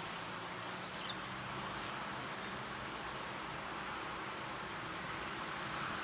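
An insect singing one steady, unbroken high-pitched tone that drifts slightly higher near the end, over a faint even hiss.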